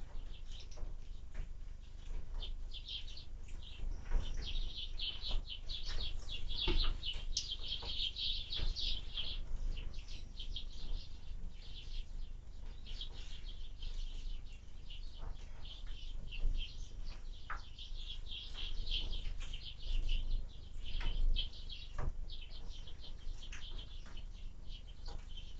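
Small birds chirping and chattering almost without pause, over a low wind rumble, with a few sharp knocks.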